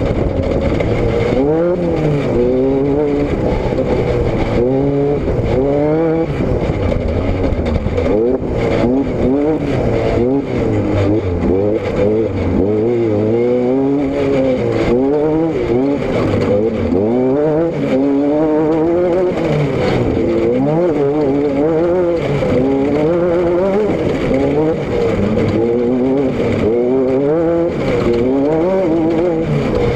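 Car engine and exhaust running hard under changing throttle, the engine note climbing and falling again and again, every second or two.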